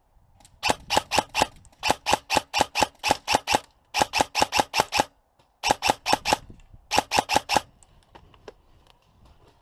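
Airsoft gun firing rapid single shots, about five a second, in five bursts of four to nine shots.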